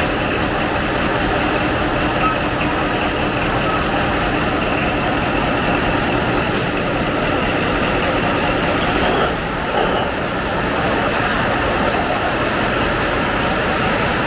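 Caterpillar 3516B-HD V16 twin-turbo marine diesel running steadily in the engine room, a loud, even drone with a brief dip in level about nine seconds in.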